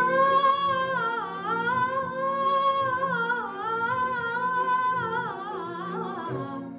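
Woman singing a Bollywood song over a backing track, holding long notes that bend and dip in pitch, fading near the end.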